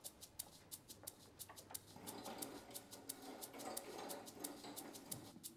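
Faint, rapid, even ticking of a clock sound effect.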